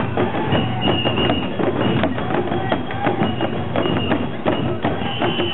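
Festival procession percussion: uchiwa daiko fan drums and hand gongs beaten in a fast, steady rhythm, with crowd voices mixed in.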